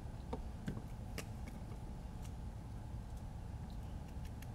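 Faint scattered clicks and taps of small electronic parts and tools being handled on a workbench, the sharpest about a second in, over a low steady hum.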